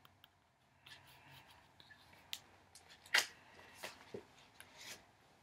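Faint paper rustling and a few light taps as a book is handled and put down, the sharpest tap about three seconds in.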